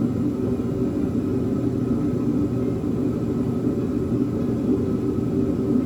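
Steady low rumble with no distinct knocks or clicks.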